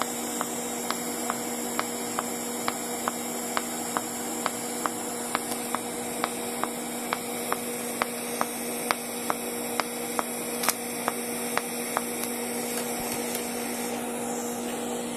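Pulsed TIG welding arc from a Migatronic PI200 inverter: a steady hum with a sharp tick about twice a second as the current pulses. The ticking stops near the end when the arc is broken.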